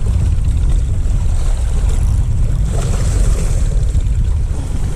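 Wind buffeting the microphone, a steady low rumble, over the wash of the sea.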